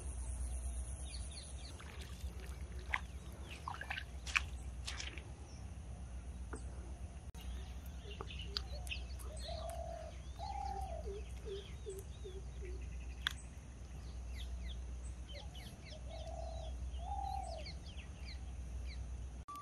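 Wild birds chirping and calling, with a lower two-note call heard twice, one pair in the middle and one near the end, over a steady low rumble; a few sharp clicks stand out.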